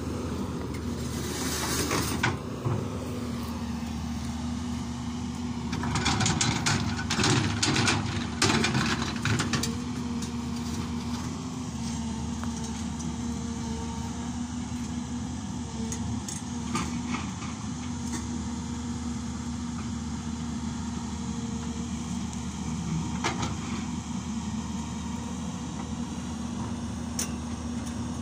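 Hyundai 220LC crawler excavator's diesel engine running with a steady hum while it digs, with a cluster of clattering knocks about six to nine seconds in.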